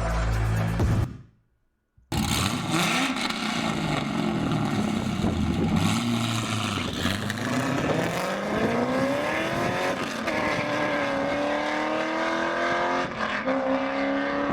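A car engine under hard acceleration: its pitch climbs steadily, drops sharply at a gear change about ten seconds in, then climbs again. It starts after music cuts off to a second of silence.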